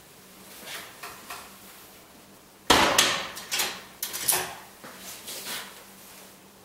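Heavy steel door of a Nivex security cabinet swung shut with a loud metallic slam about two and a half seconds in. Right after, the lever handle is turned and the locking bolts clunk into place, with a few softer clicks after.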